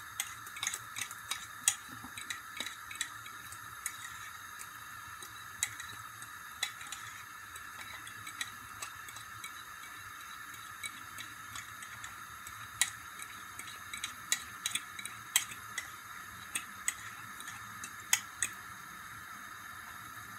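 A fork clicking and scraping against the inside of a ceramic bowl while beaten egg is scraped out into a frying pan: irregular sharp clicks, sometimes several in quick succession, over a steady background hiss.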